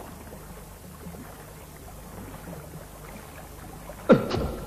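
Steady rush of water flowing through a cave. Just after four seconds in, a sudden loud sound cuts in, its pitch dropping quickly over about half a second.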